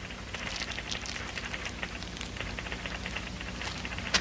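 Cellophane gift wrapping crinkling and crackling in irregular small bursts as it is handled.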